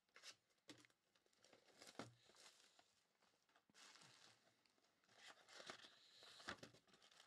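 Faint crinkling and tearing of plastic shrink wrap being slit and pulled off a cardboard trading-card hobby box, with a few soft knocks as the box is handled.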